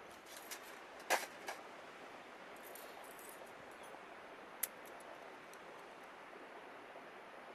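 Steady rush of river water, with a few sharp clicks and knocks over it. The loudest click comes about a second in and another comes near the middle.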